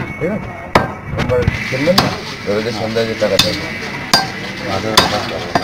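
Heavy butcher's cleaver chopping beef on a wooden stump block: about five sharp strikes, roughly one a second.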